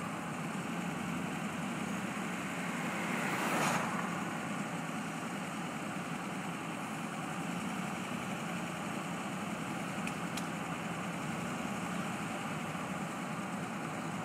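Steady engine and road noise of a moving car, heard from inside the cabin, with a brief louder rush about three and a half seconds in.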